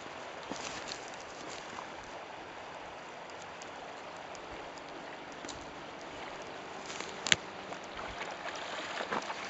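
Shallow braided river running over a shingle bed: a steady rushing of water. A single sharp click comes a little past seven seconds in.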